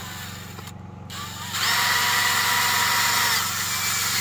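Cordless drill-driver driving a screw that fastens a small electric water pump into a plastic case. It runs, stops just under a second in, gives a short blip, then runs again louder and steady with a whine for about three seconds from about a second and a half in.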